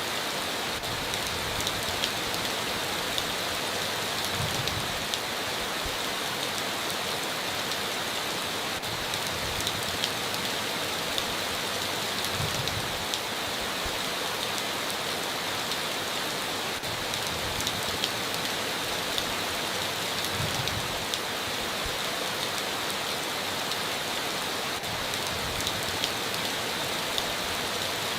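Steady heavy rain drumming on a tin roof, with scattered sharp drop ticks and a soft low thud every several seconds.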